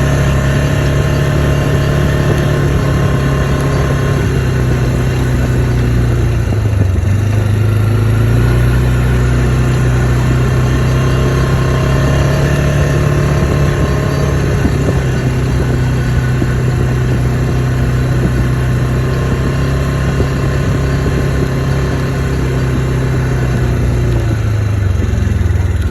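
ATV engine running steadily while riding, its revs dropping briefly about seven seconds in before picking back up.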